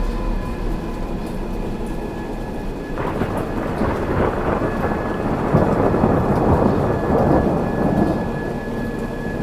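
Rain sound effect with a rumble of thunder that swells about three seconds in, peaks mid-way and fades, over a steady low drone.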